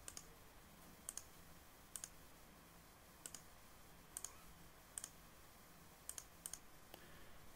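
Faint computer mouse clicks, single and double, about once a second.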